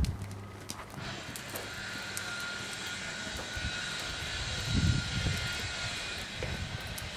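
Steady engine drone with a thin, steady whine over it, setting in about a second in and holding on. A low thudding comes about two-thirds of the way through.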